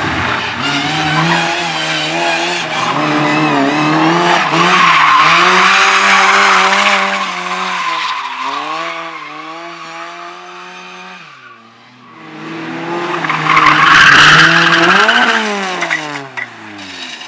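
Slalom race car being driven hard through the course: the engine revs up and down between gear changes and the tyres squeal and skid through the turns. It is loudest in two spells, about five seconds in and again about fourteen seconds in. Near the end the engine note drops steeply as the car slows.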